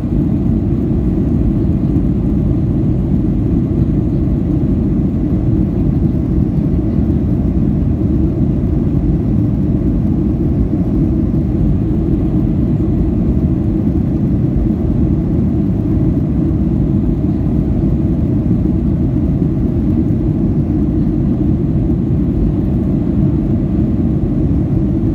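Jet airliner cabin noise in flight: a steady low rush of engines and airflow, heard from inside the cabin, with no change throughout.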